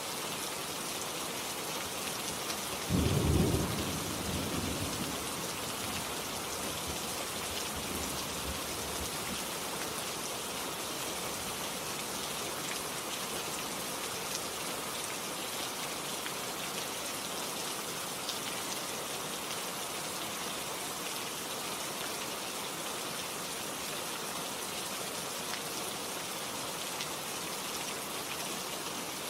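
Steady heavy rain from a relaxing rain-ambience track, with one thunderclap about three seconds in that rumbles low and dies away over several seconds.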